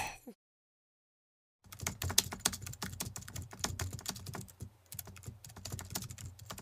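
Computer keyboard typing: a fast, even run of key clicks that starts after a second or so of silence, accompanying text being typed out on screen.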